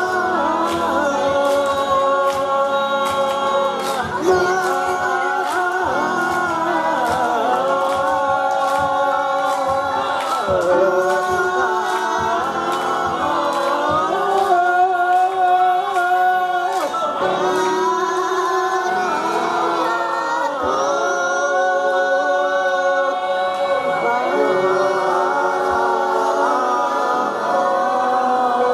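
A large mixed group of men and women singing a song together, unaccompanied, with a steady beat of claps about twice a second through the first half.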